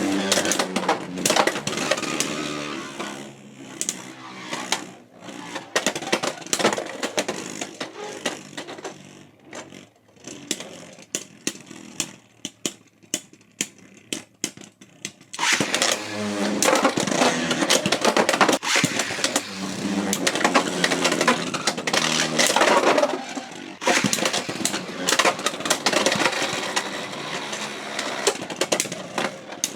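Beyblade X spinning tops battling in a plastic stadium: a dense whirring grind with many sharp clicks and clacks as they collide. Around the middle it thins out to scattered clicks and rattles as the tops slow and stop. About halfway through a fresh battle starts loud again.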